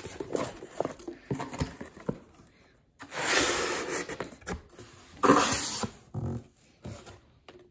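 Cardboard box flaps being pulled open and pushed aside: a run of small knocks and taps, then two loud rustling scrapes of cardboard, a longer one about three seconds in and a shorter one about five seconds in.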